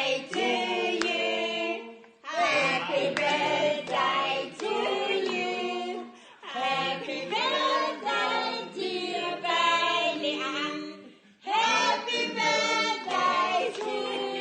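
Several voices singing together without accompaniment, in sung phrases with short breaks between them.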